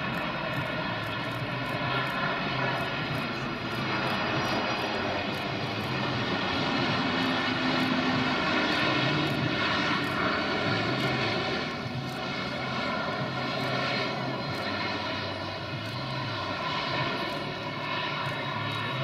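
Boeing 747-400 jumbo jet's four jet engines on the landing roll: a steady roar with a layered engine whine, loudest around the middle as the jet passes.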